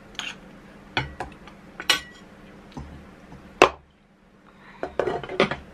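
Cutlery clinking and scraping against a plate during a meal: a handful of sharp clinks spread through the few seconds, with a quick cluster near the end.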